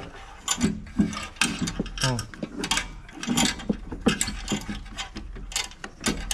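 Irregular metallic clicks and clinks of fittings, nuts and tools being handled while the injector lines are fitted to a diesel injection pump.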